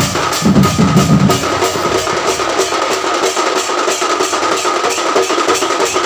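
Ghanta badya drum band playing loudly, several barrel drums beaten with sticks in a fast, even rhythm of about four strokes a second, over a steady high ringing tone. Deep drum strokes sound for the first second and a half, then drop out.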